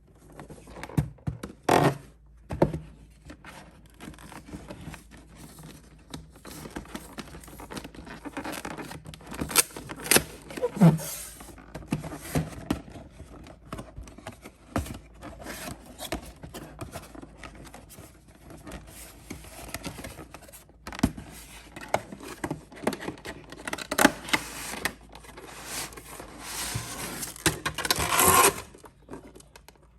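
Hands handling and opening the packaging of a Pokémon card collection box: irregular scraping and rustling with small knocks, and several louder scrapes.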